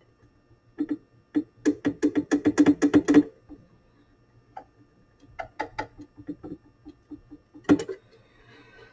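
Quick run of small clicks and taps, about eight a second, as a cotton swab scrubs the tape head and roller inside an 8-track player's cartridge slot. Scattered taps follow, then one louder knock near the end.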